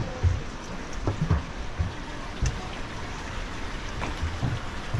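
Running water rushing steadily along an aqueduct channel, with scattered low thumps.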